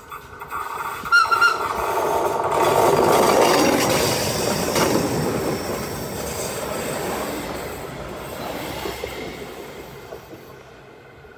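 NPZ-type regional electric train passing close by: the rumble of its wheels and running gear builds to its loudest a few seconds in, then fades steadily as the train moves away. A short high tone sounds about a second in.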